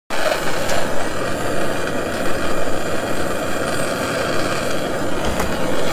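Handheld gas torch on a yellow fuel cylinder burning with a steady roaring hiss, cut off suddenly at the end.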